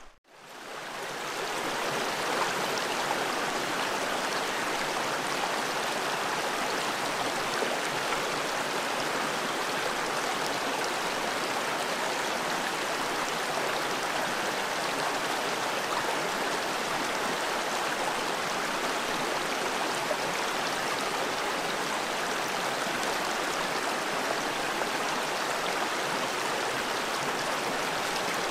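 Small rocky stream running over stones and riffles: a steady rush of water that fades in over the first second or two.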